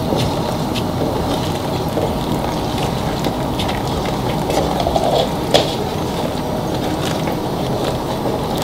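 Ladle stirring a large metal pot of boiling jameed (yogurt sauce), with a steady bubbling rumble and scattered clicks and scrapes of the ladle against the pot.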